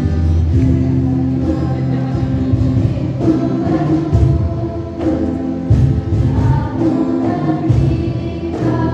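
Music with a choir of singing voices over sustained chords and a bass line.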